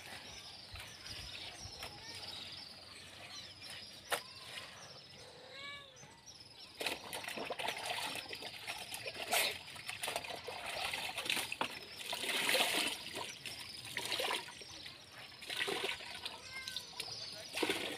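Water splashing and sloshing as a veranda floor is washed, in irregular bursts from about seven seconds in.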